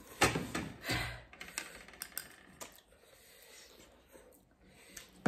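Eating sounds at a table of noodles: two louder mouth sounds in the first second or so, then scattered light clicks of forks and chopsticks against ceramic plates, growing quieter after about three seconds.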